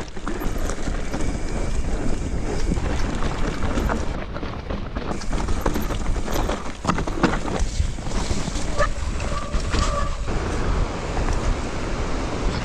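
Wind buffeting the microphone over a steady low rumble, with scattered clicks and knocks.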